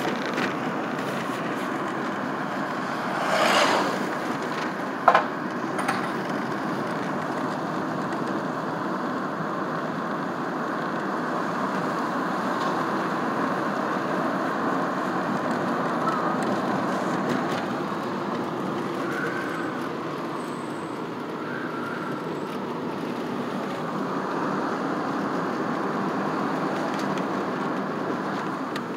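A car driving slowly, heard from inside the cabin by the side window: steady road and tyre noise with the engine underneath. A brief rushing swell comes about three and a half seconds in, and a single sharp click about a second later.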